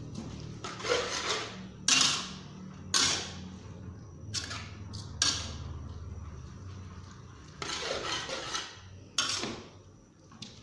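Spatula scraping and knocking against a large metal wok while rice noodles are tossed: irregular strokes about once a second, over a low steady hum.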